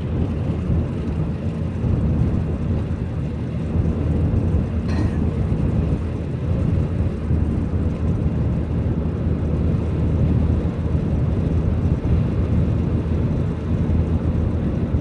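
Car driving along a road: a steady low rumble of road and engine noise heard from inside the moving car, with one short tick about five seconds in.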